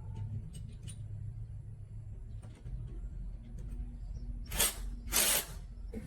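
Two short hisses, the second a little longer, about four and a half and five seconds in, over a low steady hum with a few faint ticks.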